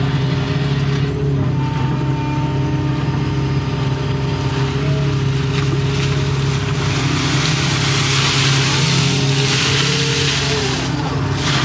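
Doosan excavator's diesel engine running steadily under load, with a hydraulic whine that rises and falls in pitch as the boom and bucket work. A hissing rush builds about seven seconds in and drops away just before the end.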